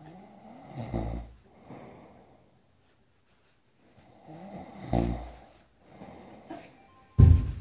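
Snoring: two long snores about four seconds apart, each with a low pulsing flutter. A sudden loud, short burst comes near the end.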